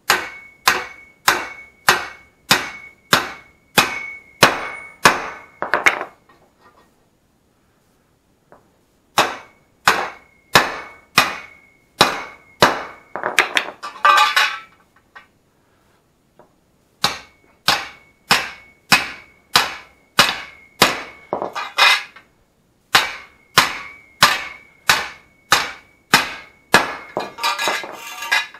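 Hammer blows on a metal tube held in a bender, about two a second, in four runs with short pauses between. Each blow rings with a clear high note from the tube as the bend is worked into it.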